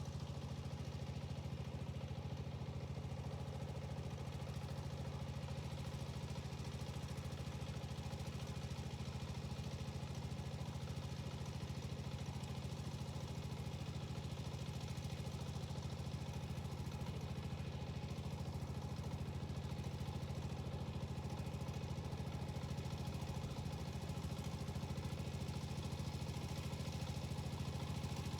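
Yanmar walk-behind tiller's diesel engine running steadily at an even speed, with a constant low pulsing beat.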